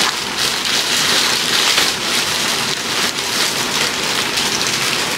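Clear plastic polybags crinkling and rustling continuously as they are torn open and handled to pull out the clothing inside.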